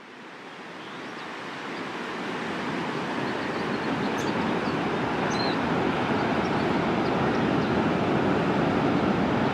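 Steady rushing roar of ocean surf, fading in over the first few seconds, with a few faint high chirps above it.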